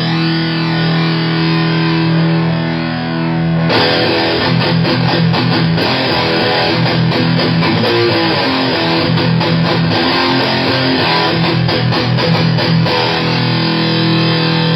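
Distorted electric guitar through a Hughes & Kettner Black Spirit 200 solid-state amp with its onboard phaser turned on: a held chord, then a fast picked riff from about four seconds in, settling back to a held chord near the end.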